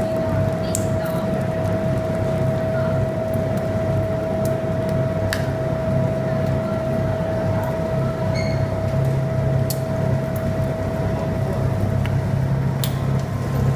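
Two-roll rubber mill running under load as silicone compound is worked between its steel rolls: a steady low hum with a constant whine above it, and a few scattered sharp clicks.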